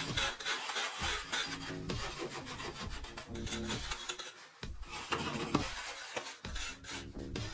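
Repeated scraping strokes of hand tools on packed earth, as the walls of a dug-out chamber are carved and smoothed.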